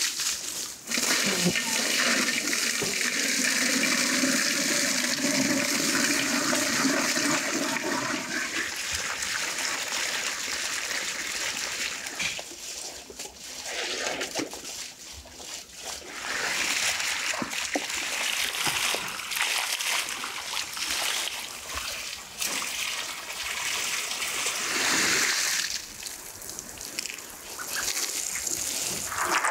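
Water from a garden hose gushing and splashing into a large metal stockpot, with a hollow ringing note for the first several seconds. The flow drops away briefly near the middle, then returns as a hissing, spattering spray falling onto the pot and the grass.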